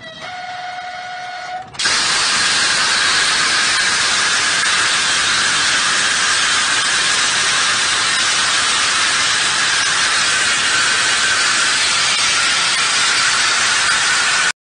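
A train's horn sounds a steady tone, then a loud, steady hiss of air starts suddenly about two seconds in as the emergency brake is applied, the brake pipe venting. The hiss runs unchanged for about twelve seconds and cuts off abruptly.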